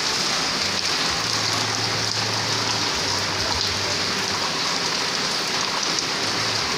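Steady rain falling, an even hiss, with a faint low hum coming and going in the first few seconds and again near the end.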